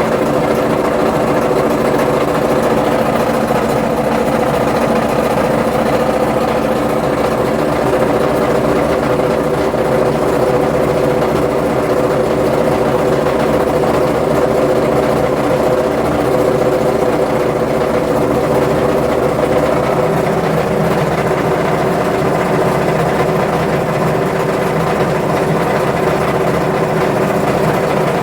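Washing machine on its spin cycle with worn-out drum bearings, giving a loud, continuous rapid rattle like a machine gun over a steady hum; the hum's note shifts a little about twenty seconds in.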